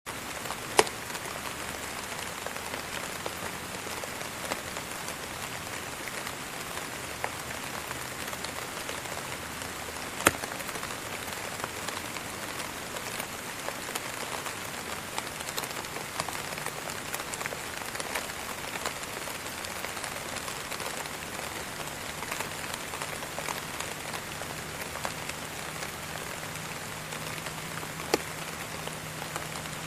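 Steady rain falling on a surface, an even patter with three louder sharp drop hits. A faint low hum comes in over the second half.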